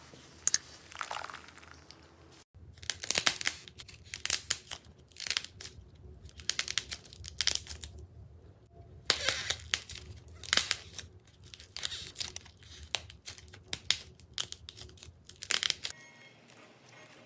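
Slime being squeezed and stretched by hand, crackling and popping in short bursts about once or twice a second, with a brief pause midway.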